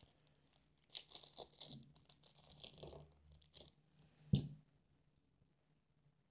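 Small clear plastic parts bag crinkling as it is opened and handled for its motor screws, then one sharp knock about four seconds in as something is put down on the work mat.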